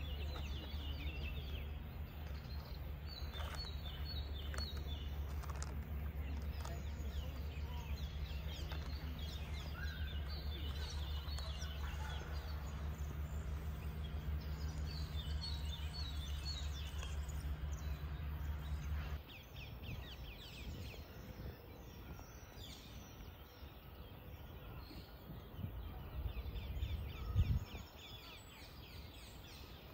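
Small birds chirping and trilling in the trees, in short repeated phrases, over a steady low rumble that stops about two-thirds of the way through. A brief low thump comes near the end.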